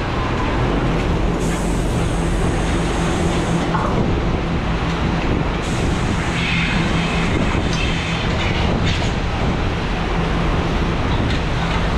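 Heavy machine engine running steadily, a constant rumble with a held low hum.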